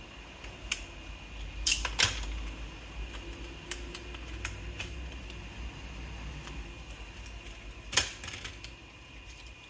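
Scattered sharp clicks and taps from hardware being handled on an opened-up laptop, over a low steady hum. A quick pair about two seconds in and a single click about eight seconds in are the loudest.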